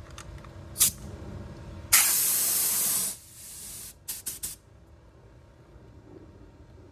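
Paint being sprayed in short blasts: a brief puff just under a second in, a loud steady spray of about a second starting near two seconds that falls to a quieter hiss, then three quick puffs around four seconds.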